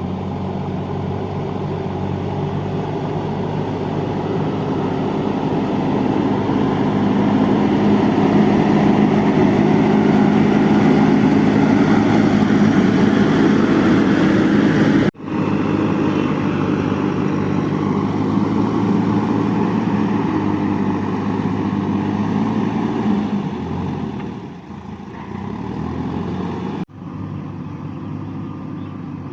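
JCB 3DX backhoe loader's diesel engine running hard under working load, growing louder over the first several seconds and then holding steady. The sound drops out for an instant twice, about halfway through and near the end.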